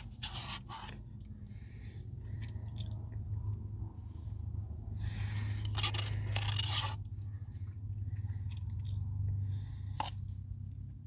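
Chewing a mouthful of ice cream with brownie pieces, with a few short scraping noises in between, over a steady low hum.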